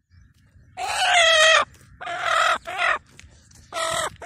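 A hen squawking as it is carried, held in the hand by its wings and legs: four loud squawks, the first the longest, starting about a second in.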